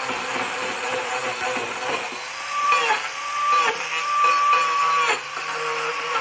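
Angle grinder with a Manpa carving attachment grinding wood, its motor whine dipping in pitch each time the disc bites into the wood, over a steady scratchy rasp.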